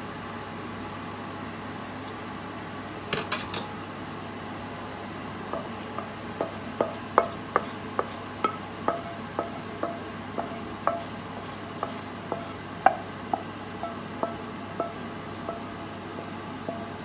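Metal spatula scraping and knocking against a wok as the last of the sauce and garlic is scraped out over the food: a regular series of short ringing clinks, about two a second, starting about five seconds in. A few sharper clicks come earlier.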